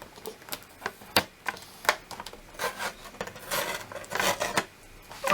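Rustling, crinkling and tearing of the wrapping on a giant chocolate surprise egg as it is pulled open by hand, with scattered sharp clicks and a longer run of rustling in the second half.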